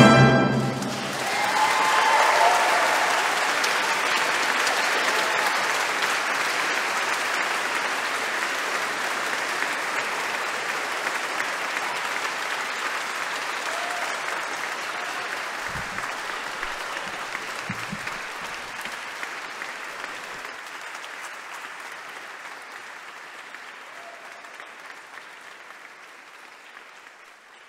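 Audience applauding at the end of a live song with orchestra, the clapping slowly fading away.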